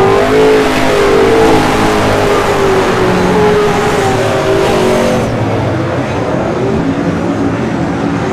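A pack of speedway saloon race cars running together on a dirt oval, their engines revving with shifting pitches. About five seconds in the sound gets quieter and duller.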